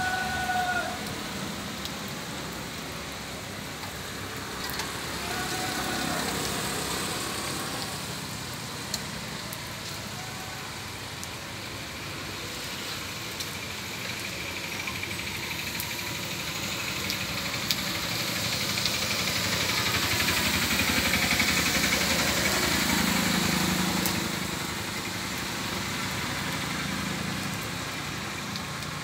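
Steady hiss of rain and traffic on a wet road, swelling louder for several seconds past the middle as a vehicle goes by. Two short high tones sound near the start and about six seconds in.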